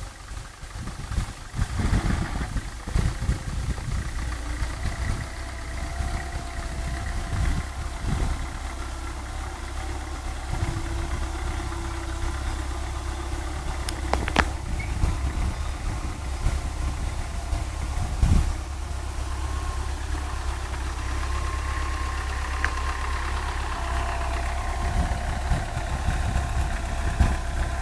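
Tractor diesel engine running steadily while pulling a cultivator through the soil, with a steady low rumble. A couple of sharp clicks stand out midway.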